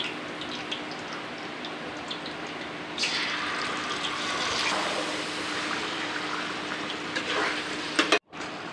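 Curry leaves crackling in hot oil in a kadai, then a sudden loud sizzle about three seconds in as marinated chicken is tipped into the pan, easing into a steady frying hiss. A spatula scrapes through the pan near the end, and the sound drops out for a moment just before the end.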